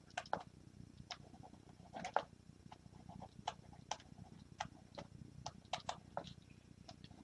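Graphics-tablet pen tip tapping and scratching on the tablet's writing surface during handwriting: faint, irregular clicks, a few a second, with a short scratch about two seconds in.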